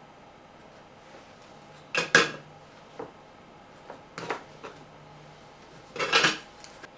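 Hands handling small parts and tools at a workbench: a few sharp knocks and clatters, the loudest about two seconds in and a longer rattle about six seconds in, with lighter clicks between.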